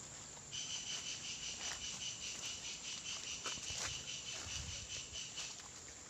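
An insect's steady, fast-pulsing high trill starts about half a second in and cuts off shortly before the end.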